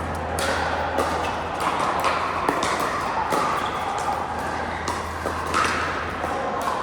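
Pickleball paddles striking the ball: sharp pops at irregular intervals, roughly one or two a second, over a steady low hum.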